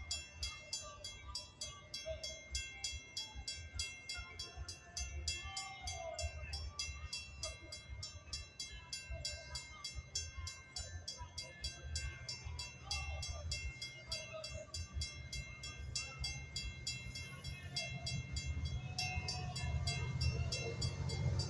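Metra commuter train's bilevel passenger cars rolling past through a grade crossing, wheels rumbling steadily on the rails, with the crossing bell ringing in a rapid even beat. It grows louder near the end as the locomotive nears.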